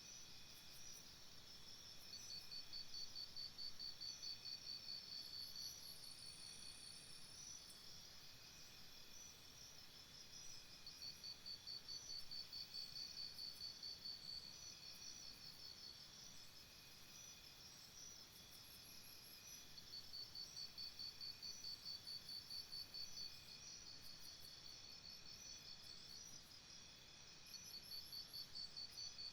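Insects, crickets by their sound, calling faintly in a garden. A steady high-pitched background trill runs throughout. Over it come bouts of rapid high pulsing, each lasting about three to five seconds, that start up roughly every eight seconds.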